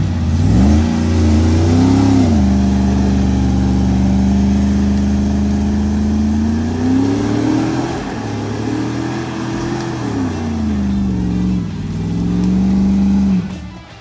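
Off-road vehicle's engine revving hard on slick rock: it climbs in revs twice, holds steady for a few seconds in between, and drops off abruptly near the end. The throttle is worked to spin and heat the tires for grip on wet, slick rock.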